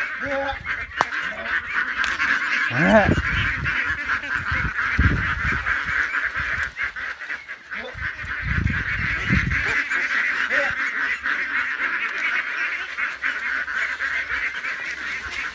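A flock of poultry calling in a dense, steady chatter, with low thuds and rumbles over the first ten seconds or so.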